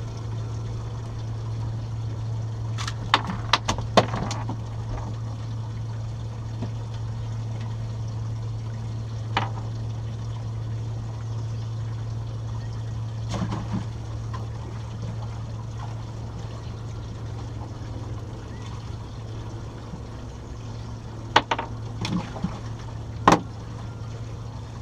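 Water splashing and trickling over a steady low hum, with sharp clicks and knocks: a quick cluster a few seconds in, a couple of single ones in the middle, and another cluster near the end.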